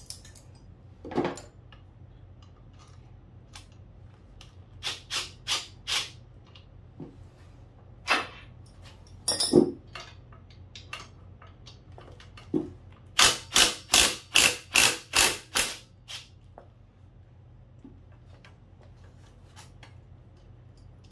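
Cordless drill-driver on a long extension bar unfastening bolts on a scooter engine, run in short trigger bursts. There are four bursts about five seconds in, single and double ones around eight to ten seconds, and a run of about eight quick bursts, three or four a second, near the end.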